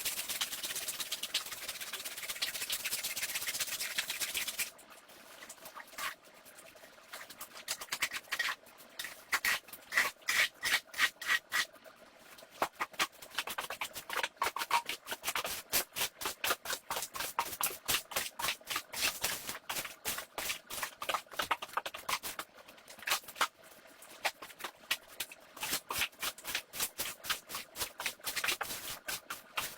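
A steady hiss for the first few seconds, then a brush scrubbing a shag rug in quick repeated strokes, about three a second.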